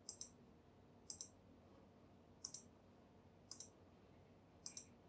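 Computer mouse button clicked five times, about once a second, each click a quick double tick of press and release, over near-silent room tone.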